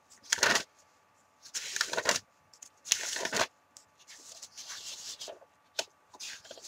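Paper rustling in several short bursts as the pages of a stuffed paper calendar diary are turned and handled.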